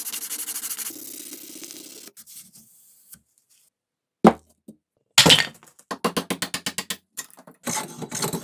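Fast back-and-forth strokes of a steel hammer head rubbed on coarse sandpaper, then a pause and a single sharp crack. A run of quick, evenly spaced hand-tool strokes on a clamped maple handle blank follows, about six or seven a second.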